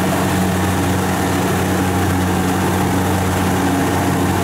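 Kubota DC70 combine harvester's diesel engine running steadily with a constant low hum while the machine cuts and threshes rice.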